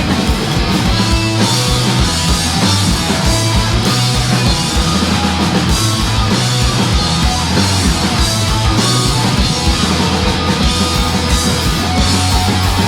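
Punk rock band playing live: distorted electric guitars, bass and a fast, driving drum kit in an instrumental passage with no vocals.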